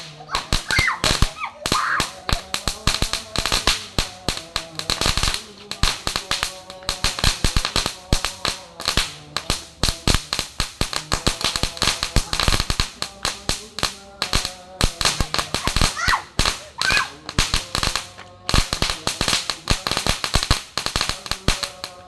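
Long-burning firework giving off a rapid, irregular string of loud bangs, several a second, without a break.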